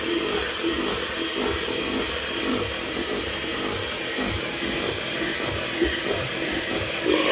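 Electric hand mixer running steadily, its beaters whirring through cake batter in a stainless steel bowl, with irregular low knocks.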